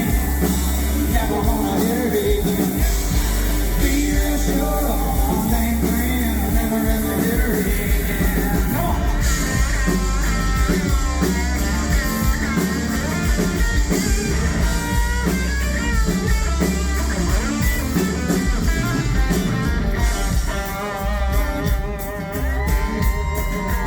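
Live country-rock band playing, with sung vocals over electric guitar, bass and a steady drum beat.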